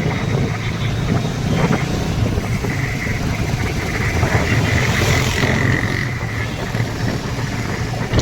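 A motorbike engine running steadily while riding on the road, with a constant rush of road noise and a brief surge of hiss about five seconds in.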